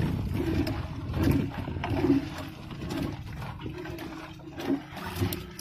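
Bottom-set gill net being paid out by hand over the side of a small wooden outrigger boat: a low swish and splash that comes in a rough rhythm about once a second, weakening toward the end, with a faint steady hum near the end.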